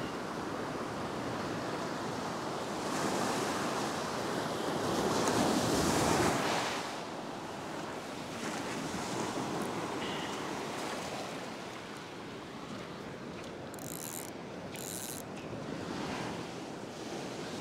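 Ocean surf breaking and washing up the beach, a steady rush that swells loudest about five to six seconds in as a wave comes through.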